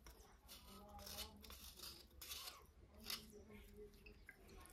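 Knife blade scraping a wet slate pencil in a series of short, faint strokes.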